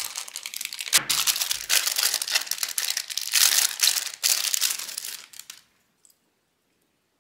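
Thin clear plastic packaging bags crinkling and rustling in the hands as multimeter test leads and accessories are pulled out and unwrapped. The crackling stops suddenly about five and a half seconds in.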